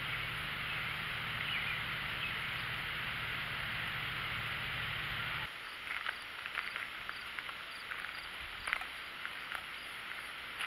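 Outdoor ambience with a steady hiss and low hum, which cuts off about halfway through. It gives way to quieter outdoor sound: irregular crunching footsteps on a gravel path, and a faint high insect chirp repeating about twice a second.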